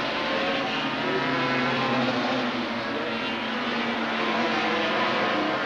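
Several 500cc two-stroke Grand Prix racing motorcycles running together through a tight corner, their engine notes overlapping and shifting slightly in pitch.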